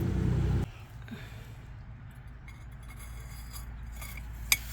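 Excavator's diesel engine running steadily, its sound dropping away sharply less than a second in and leaving a faint low hum. Then light metallic clinks of tools and parts, with one sharp click near the end.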